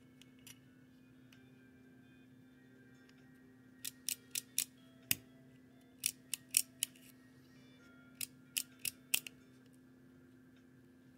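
Sharp little mechanical clicks from a 1941 Argus AA 35 mm camera being worked by hand, coming in quick runs of four or five with pauses between.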